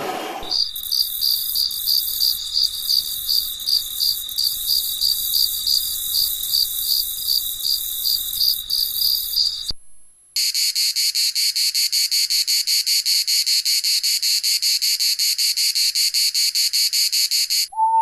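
Crickets chirping: first a high, even chirp repeated about four times a second for about nine seconds, then after a brief pause a second, denser continuous high trill.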